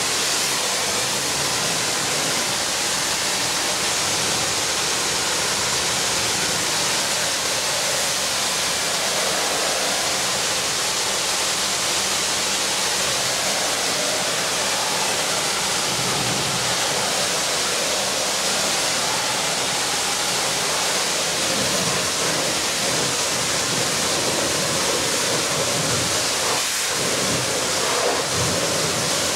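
Pressure-washer wand spraying high-pressure water against the body of a John Deere combine harvester: a steady hiss.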